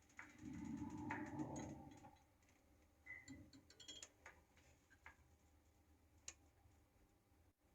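Near silence: a brief faint low rumble in the first two seconds, then a few scattered faint clicks.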